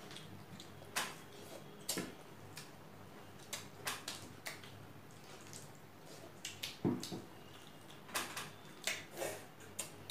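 Close-up hand-eating sounds: fingers mixing and squishing rice with dal, with scattered short wet smacks of chewing and lips. Dal is poured from a glass bowl over rice about six seconds in.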